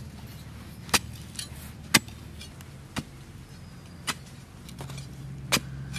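An iron digging tool striking hard, dry soil about once a second, each blow a sharp, short strike, over a low steady hum.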